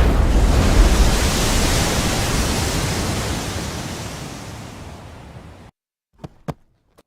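Loud rushing noise sound effect, like a blast of wind, fading out over about five seconds and then cutting off abruptly, followed by two short clicks.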